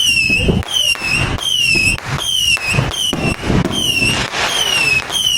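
An electronic alarm sounding a high falling chirp over and over, very evenly at about two a second, with firework bangs and crackle underneath.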